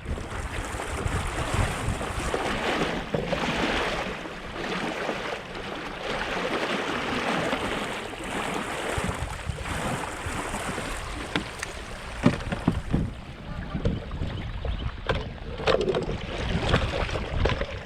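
River water rushing and splashing against a kayak, surging louder and softer, with wind buffeting the microphone and a few knocks on the hull about two-thirds of the way through.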